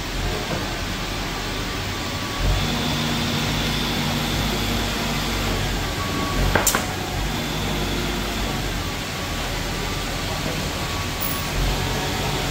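Steady mechanical hum of workshop machinery, with faint steady tones for a few seconds and a single sharp click about halfway through.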